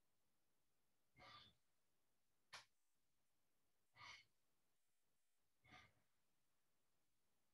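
Three short, faint exhalations from a person doing a tai chi breathing exercise, each breath timed to a Ward Off movement. A single sharp click falls between the first and second breaths.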